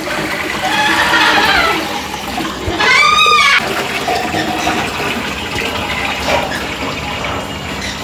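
Water poured into a glass aquarium, a steady rush of splashing water churning up bubbles in the tank. A short, arching high call cuts in about three seconds in.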